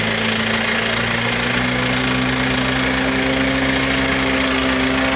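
A vehicle engine running steadily, its pitch rising slowly over the few seconds.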